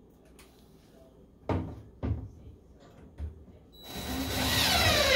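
A few short knocks, then a cordless drill/driver runs, driving a screw into a concealed cabinet door hinge. Its motor whine drops in pitch and grows louder as the screw tightens.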